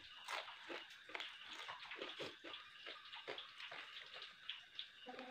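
Close, wet eating sounds: quick irregular slurps, sucks and lip smacks with chewing, from a man eating spicy cooked freshwater snails and fish by hand.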